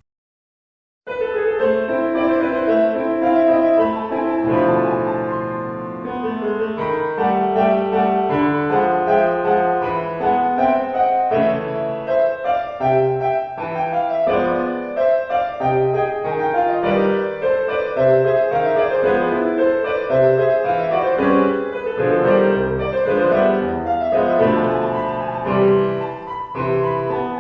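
Piano music: a steady stream of notes and chords that starts about a second in after a brief silence.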